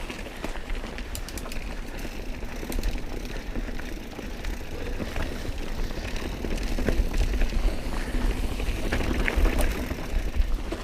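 Mountain bike riding over a dirt trail: tyres rolling on dirt and rock with scattered clicks and rattles from the bike, and wind rumbling on the camera microphone.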